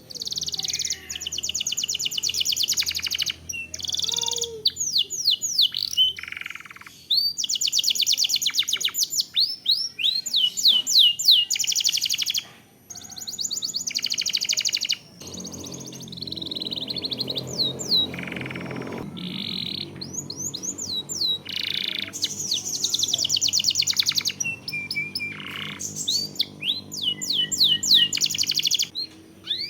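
Domestic canary singing long phrases of very fast rolling trills mixed with quick sweeping whistled notes, broken by short pauses.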